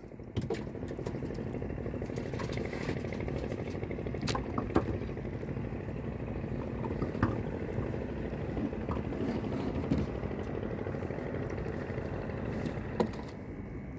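Small fishing boat's engine running steadily, with a few scattered knocks and clicks on board.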